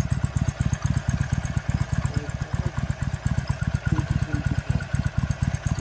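Harley-Davidson Sportster's air-cooled V-twin engine running at a steady idle, a rapid even train of low exhaust pulses with no revving.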